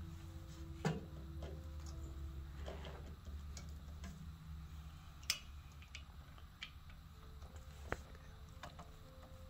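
Scattered clicks and light knocks of a long Phillips screwdriver forcing tight screws loose on the tamper assembly of a Nuova Simonelli Mythos Plus espresso grinder, with a few sharper clicks standing out, over a low steady hum.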